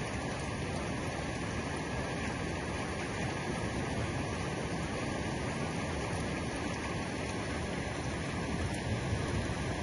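Heavy rain falling steadily, a constant even rush with no breaks.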